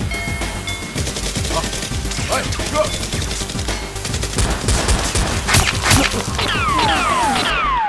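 Gunfire in a shootout: many shots in quick, irregular succession. Near the end come several falling whistle-like tones, one after another.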